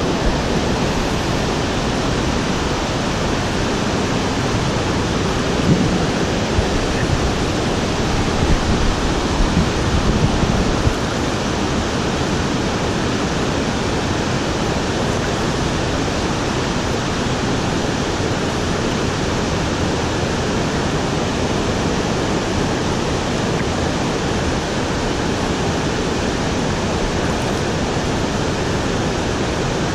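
Fast-flowing river water rushing steadily in a full, even roar around a camera held right at the water's surface. Louder, uneven splashes come from about six to eleven seconds in.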